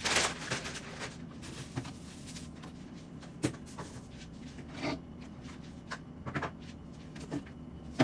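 Scattered light clicks and knocks of household items being handled and set down, with a sharp knock about three and a half seconds in and another at the end.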